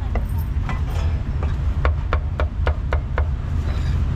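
Cleaver chopping barbecued pork and pork belly on a wooden chopping block: a run of sharp chops, about three to four a second in the middle, stopping a little after three seconds in. A steady low rumble runs underneath.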